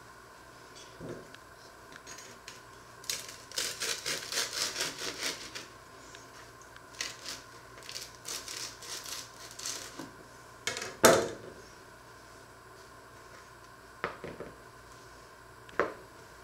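Knife sawing through a crusty bread roll in quick strokes, about four or five a second, in two spells. A single loud knock comes about eleven seconds in, and two lighter taps near the end.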